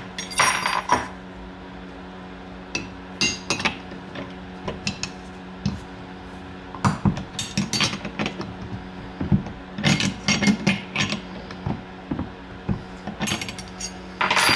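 A metal wrench clicking and clinking in about five short bursts as the top nut is tightened onto a coilover shaft at the strut top mount. A faint steady low hum sits underneath.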